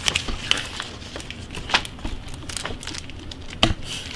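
Folded printed cardboard packaging insert crinkling and rustling as it is handled and unfolded, in a run of scattered sharp crackles, with a louder one about halfway and another near the end.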